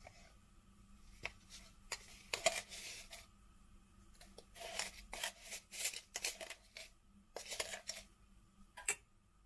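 Kitchen handling noises: a series of short scrapes and rustles, a second or so apart, with a few sharp clicks in between.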